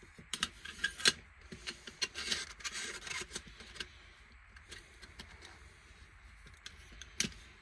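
Aluminium stove stand and solid-fuel tablet holder of an Esbit cook kit being handled as fuel tablets are set in: a run of light clicks, taps and rubbing over the first few seconds. Quieter handling follows, with one sharper click near the end.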